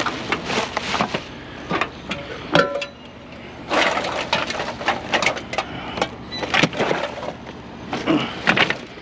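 Discarded metal car parts clanking and clattering as they are handled and picked through: a run of sharp knocks, one about two and a half seconds in ringing briefly like struck metal.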